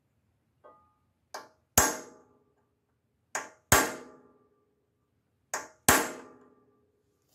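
Claw hammer striking a punch against a Briggs and Stratton engine's aluminum cylinder head, peening the metal around a loose valve guide to tighten it. Three hard, ringing blows about two seconds apart, each just after a lighter tap.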